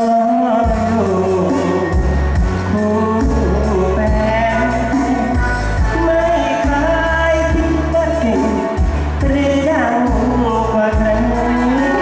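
Male singer singing a Thai luk thung song into a microphone over an amplified band backing with a bass line and a steady beat.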